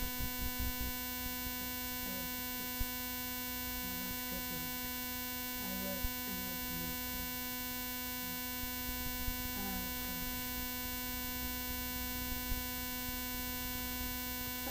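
A steady electronic hum and whistle recorded into the webcam's audio: a constant buzzing tone with a stack of high overtones that never changes, with a few faint clicks. It is an audio fault of the recording, which the uploader calls whistling.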